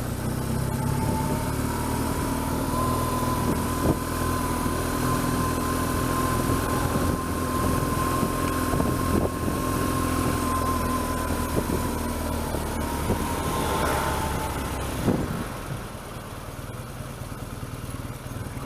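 BMW R1200GS flat-twin (boxer) motorcycle engine running at low town speed, with a thin steady whine over it. The whine fades about fourteen seconds in, and the engine gets quieter about a second later as the bike slows.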